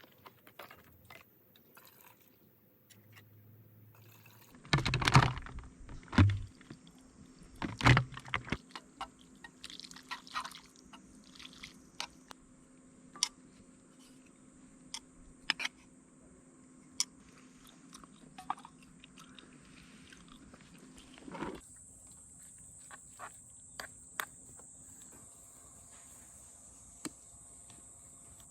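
Close-up chewing and crunching, with a few loud knocks in the first third and scattered light clicks after.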